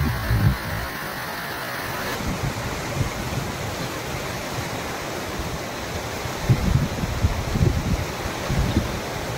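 Monsoon runoff spilling over a concrete weir and splashing down among rocks: a steady rush of water. Wind buffets the microphone in low gusts, most of all from about six to nine seconds in.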